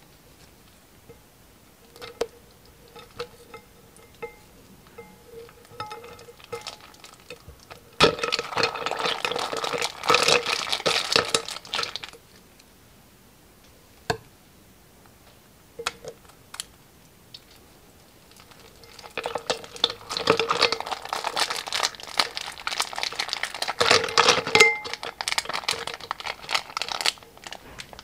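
Plastic piping bags crinkling as they are squeezed, and small slime charms, fruit slices and sprinkles pouring out and pattering and clinking into a glass dish in two dense bursts, with scattered lighter clicks and crinkles in between.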